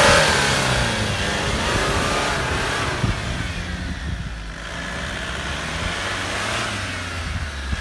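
Opel Frontera off-roader's engine revving as it pushes through deep snow, its pitch rising and falling. It is loudest at the start and eases to lower, steadier revs about three seconds in.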